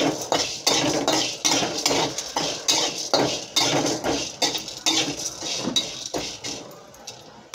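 Flat metal spatula scraping and stirring whole cloves and black peppercorns in a little oil in a stainless steel kadhai. It goes in short strokes, about two to three a second, that die away near the end. The spices are being roasted red on low heat.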